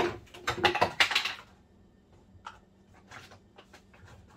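A quick run of clattering knocks and taps from kitchen things being handled on a counter, loudest in the first second and a half, then a few faint scattered clicks.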